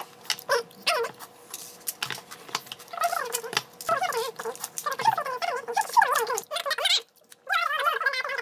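Close-up mukbang eating sounds: wet chewing and mouth clicks on tteokbokki and gimbap. From about three seconds in, a wavering high-pitched tone joins them.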